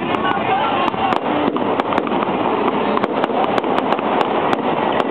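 Fireworks going off in quick succession: a continuous crackling hiss with many sharp pops and bangs, several a second at uneven intervals.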